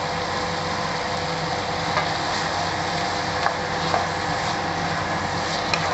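A wooden spatula stirring diced bottle gourd curry in a pan, with a few light knocks of the spatula against the pan. Under it runs a steady mechanical hum and hiss.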